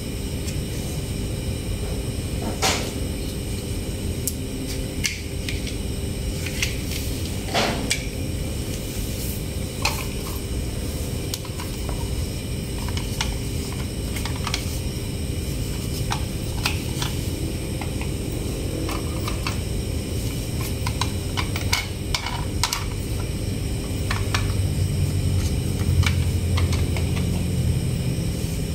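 Plastic toy trucks being handled, with scattered light clicks and knocks of hard plastic, over a steady background hum. A low rumble grows louder near the end.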